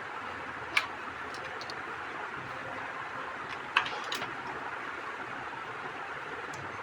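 Steady hiss with three short, sharp clicks, one about a second in and two close together near four seconds, like small objects being handled.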